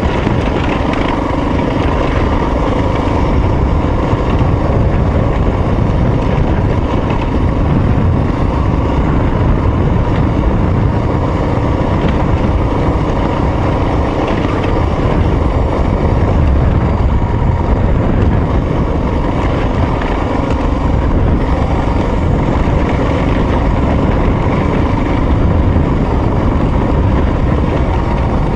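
A vehicle driving along a rocky dirt trail, heard from a camera mounted on its side: a steady low rumble of the engine and tyres rolling over dirt and gravel, with no change in pace.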